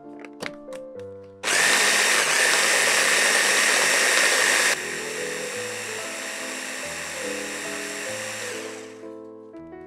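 Electric mini chopper (hand-blender motor on a chopper bowl) whirring as it blends milk, herbs and garlic into a liquid sauce. It starts about a second and a half in, runs loud for about three seconds, then drops suddenly to a lower level and fades out near the end.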